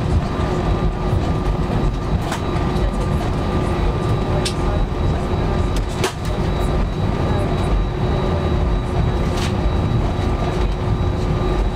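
Steady low rumble inside an Airbus A320 cabin as the jet taxis on one engine, with a constant hum and a faint steady whine over it. A few sharp clicks or rattles come through at irregular moments.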